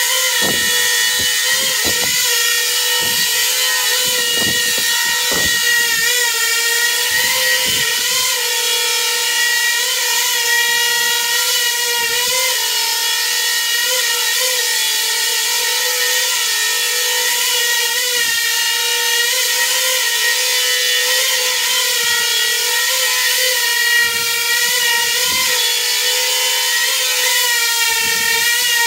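Small coaxial drone's motors and propellers hovering, a steady high whining buzz whose pitch wavers up and down continually. Short low thumps come and go over it, most often in the first several seconds.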